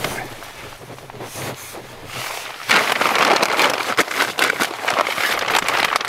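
Nylon tent fabric and gear rustling and scraping as bags and a backpack are shoved into the tent, turning loud and crinkly about three seconds in.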